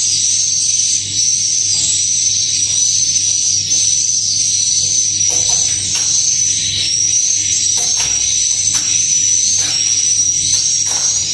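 Edible-nest swiftlets twittering continuously at a high pitch, with scattered sharp clicks.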